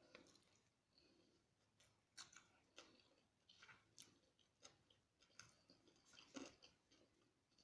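Faint close-up chewing with irregular mouth clicks and soft crunches while eating fried chicken.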